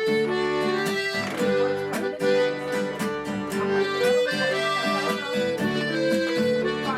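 Accordion playing a melody over strummed acoustic guitars, a country-style instrumental intro with a steady beat.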